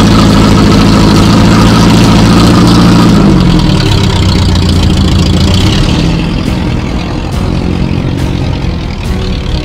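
Iranian Paykan's four-cylinder engine held at high revs, driving a propeller rigged to its front. About three seconds in the revs drop and the engine runs on lower and quieter.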